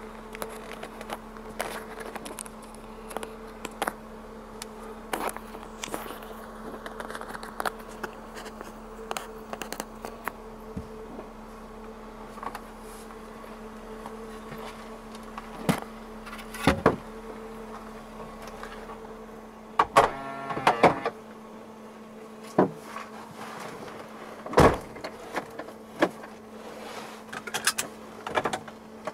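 Cabin sounds of a parked Mercedes 300 TE estate (S124) as the driver gets in: scattered clicks and rustling, several sharp knocks of the door and seat, and a brief run of rapid ticks about twenty seconds in, over a steady low hum.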